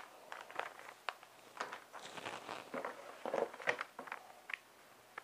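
Packaging being handled: the wrapping of long carbon-fibre rotor blades and a small plastic parts bag rustling and crinkling. Irregular light crinkles and taps run through it, with no steady sound underneath.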